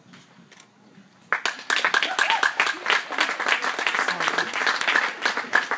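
A crowd of spectators applauding, breaking out suddenly about a second in and keeping up a steady, loud clapping.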